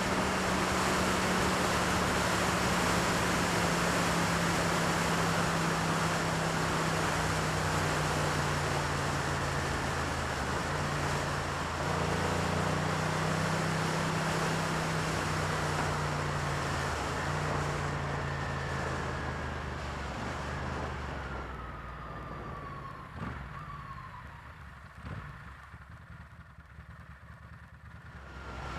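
Ducati Monster S4R's 90-degree V-twin running under way at a steady pace, its note stepping to a new pitch about a third of the way in. Later the engine note drops away and goes much quieter as the throttle is closed, with a falling pitch, and starts to pick up again right at the end.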